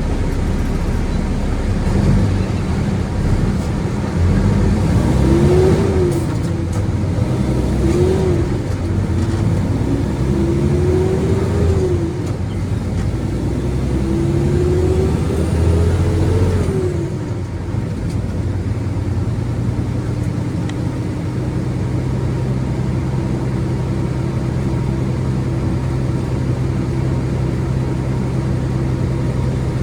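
Concrete mixer truck's diesel engine pulling away. It revs up and drops back four times as it shifts up through the gears, then settles into a steady run.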